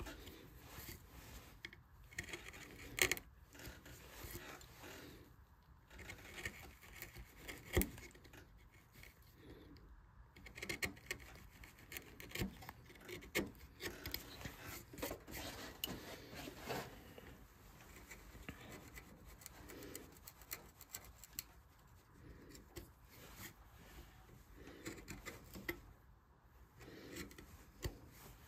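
Hand carving tool scraping and cutting into a wooden vase in faint, irregular short strokes, with a few sharper clicks.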